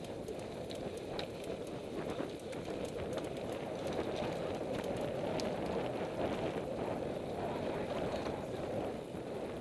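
Mountain bike riding on a dirt trail, heard from the bike: a steady rush of tyres rolling over sandy ground mixed with wind, with many scattered light clicks and rattles.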